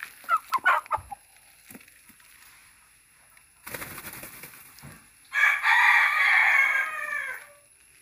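Parrot-beak Aseel rooster flapping its wings a little under four seconds in, then crowing once for about two seconds, the crow being the loudest sound.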